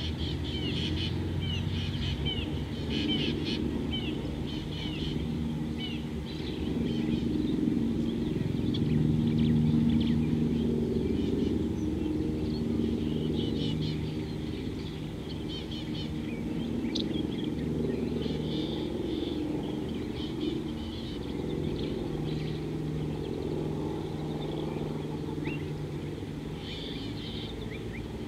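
Wild birds chirping and calling, with a quick run of short chirps in the first few seconds and scattered calls after, over a steady low drone that swells about a third of the way through.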